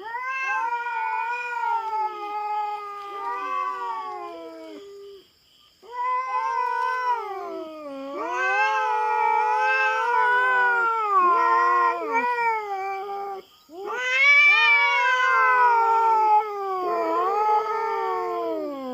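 Feral cat caterwauling: long, drawn-out yowls that rise and fall in pitch, in three long bouts with short breaks, the threatening cry of a cat facing off over territory.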